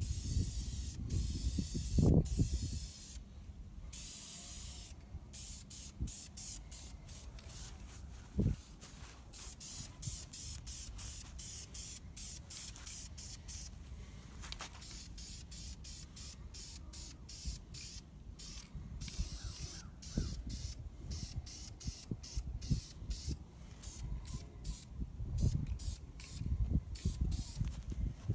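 Aerosol can of VHT high-temperature engine enamel spraying in many short hissing bursts that stop and start, laying a heavier second coat on an engine block. A few low thumps come in between, the loudest about two seconds in and near the end.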